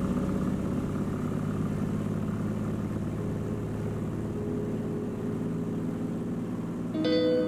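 Light propeller plane's engine running steadily at low power while taxiing, heard from inside the cabin. Plucked-string music comes in near the end.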